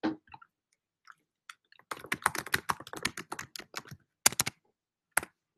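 Typing on a computer keyboard close to the microphone: a quick run of key clicks lasting about two and a half seconds, then a couple of single taps near the end, after a brief thump at the very start.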